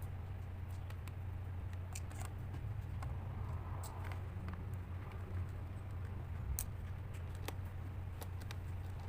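Scattered light clicks and taps of handling a laptop and small parts during disassembly, over a steady low hum.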